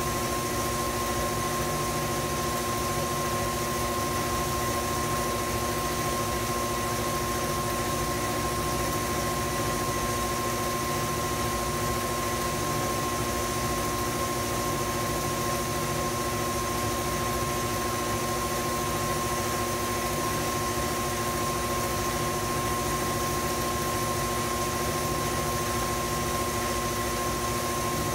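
Electric tilt-head stand mixer running steadily, beating pound cake batter: a constant motor whine that holds one pitch throughout, over a steady hum.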